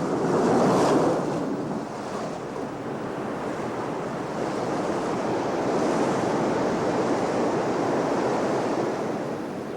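Heavy sea surf: waves breaking and washing in a continuous roar, swelling loudest about a second in and again midway.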